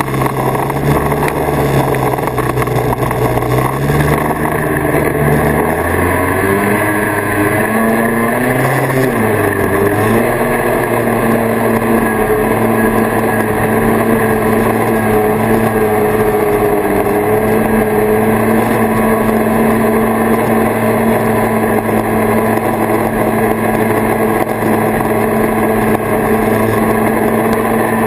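1979 Kawasaki Invader 440 snowmobile's two-stroke twin engine running while riding. Its pitch shifts and rises several seconds in, then holds steady.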